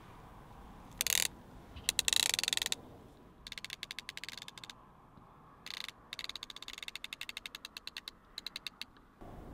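Fishing reel ratchet clicking in several quick runs of rapid, even clicks, after a brief rasp about a second in and a louder, longer rasp at about two seconds.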